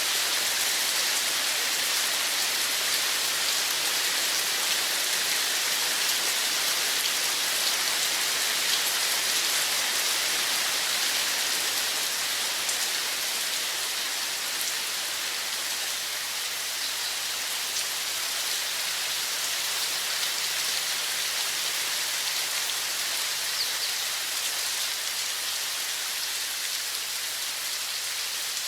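Running water: a steady, even rushing hiss with a faint patter of drops, easing a little in loudness over the second half.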